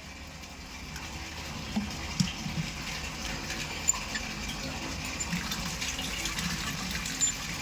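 Running water filling an earthen clay pot (matka): a steady rush that grows slowly louder as the pot fills.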